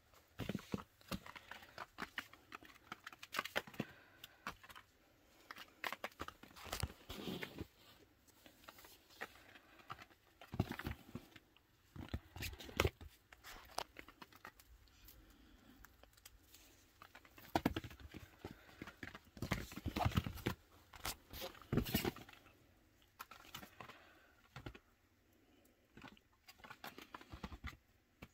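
Irregular patter, scuffs and rustling of a baby chinchilla scampering over a fabric playpen floor, in short clusters with brief pauses.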